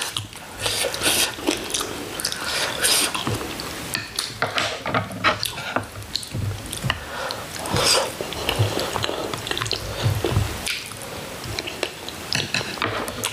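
People eating braised chicken (jjimdak) at the table: chewing, with irregular clicks and clinks of cutlery against dishes.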